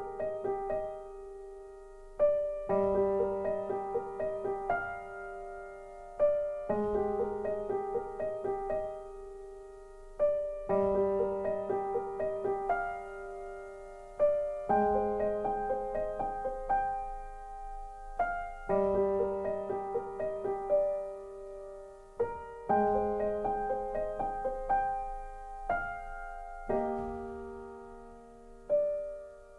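Background music: a gentle piano piece repeating a short phrase about every four seconds, each phrase struck and left to fade.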